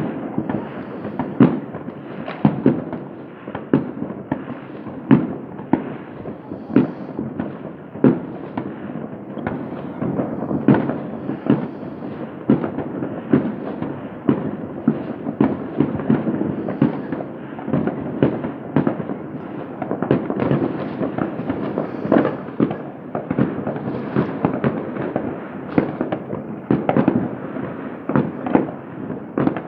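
Many New Year's fireworks and firecrackers going off at once across a city: a dense, unbroken run of overlapping bangs and pops, several a second, with louder single bangs standing out every second or two.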